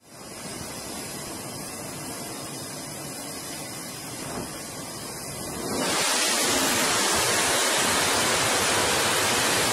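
Steady rushing noise of an aircraft carrier's flight deck during flight operations, with no distinct engine tone; about six seconds in it grows much louder and hissier and holds there.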